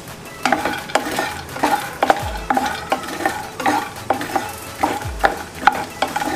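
Makhana (fox nuts) being stirred and turned with a wooden spatula in a non-stick kadhai. Quick scraping and rattling strokes, about two a second, over a light sizzle of the roasting oil, with a few low thumps.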